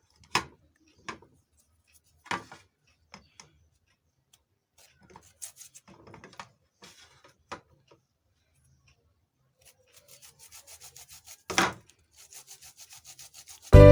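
Scattered light knocks and rubbing, then two runs of quick, even scraping strokes, about five a second, near the end, with a louder knock between them.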